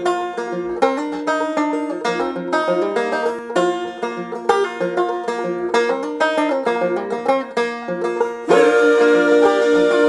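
Background music: a quick, banjo-led country tune of rapidly plucked notes. About eight and a half seconds in it gets louder and fuller.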